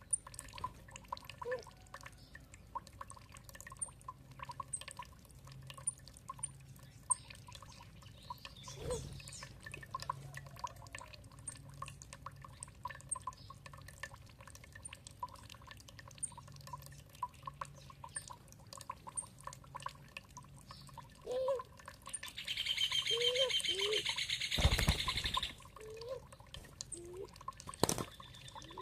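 Water dripping and trickling in small plinking drops, with birds chirping. Near the end a loud, rapid, buzzy trill runs for about three seconds.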